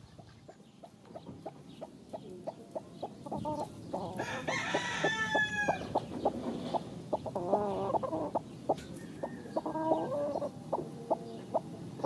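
Chickens clucking in short, repeated notes, with a rooster crowing once for about a second and a half some four seconds in.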